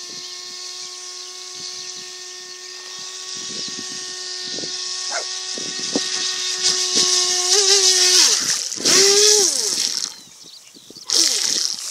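Electric motor of an FT007 RC speedboat whining at a steady pitch, growing louder as the boat comes closer across the water. About eight seconds in the pitch wobbles, then slides down, and the whine stops about ten seconds in. A short burst of rushing noise follows near the end.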